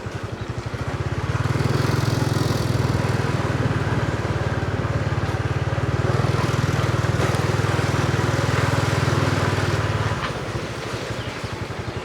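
Vehicle engine running steadily, growing louder about a second in and easing back just after ten seconds.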